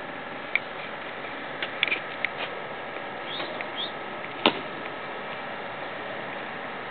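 Seat of a Kymco Downtown 300i scooter being lowered over its under-seat storage and shut: a few small clicks and knocks, then one sharp snap about four and a half seconds in as the seat latches, over a steady hiss.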